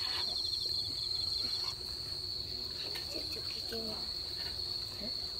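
Insects trilling in a continuous high steady tone, with a second, rapidly pulsing trill that stops about a second and a half in.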